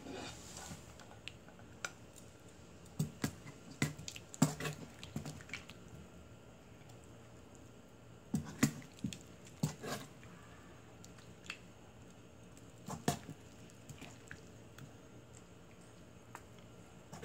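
Metal ladle clinking and scraping against a frying pan and a plate as braised chicken stew is scooped out, in scattered knocks with soft wet sounds of the stew between them.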